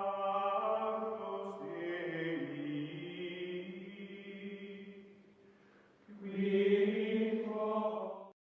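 Outro music of long, held choir-like chanted notes. It fades out about five seconds in, and a second held phrase follows and then cuts off suddenly.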